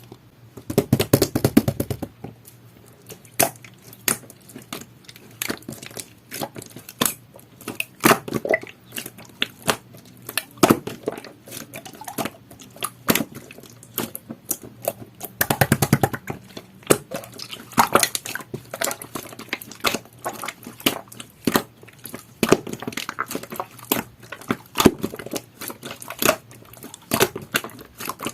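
Jelly-textured slime being squished and pressed by hand, making irregular sticky clicks and pops, with denser squelching bursts about a second in and again about halfway through.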